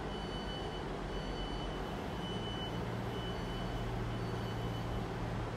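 Diesel multiple-unit trains running at a station platform: a steady low engine hum that grows stronger about two seconds in, with a high, thin whine coming and going in short stretches over it.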